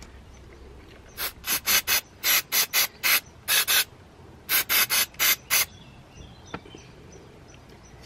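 Aerosol can of brake cleaner sprayed in about fifteen short hissing squirts, in two runs with a brief pause between them, onto a motorcycle's rear brake caliper.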